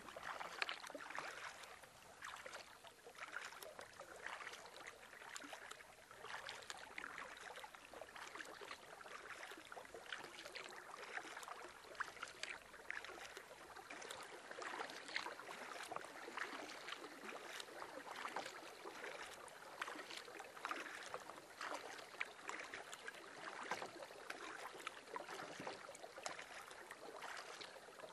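Faint splashing and dripping of water as a canoe is paddled: many small, irregular splashes from the paddle and water around the hull.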